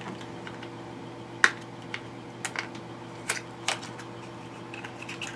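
Small cosmetic packaging being handled: a scatter of light clicks and taps, the sharpest about one and a half seconds in.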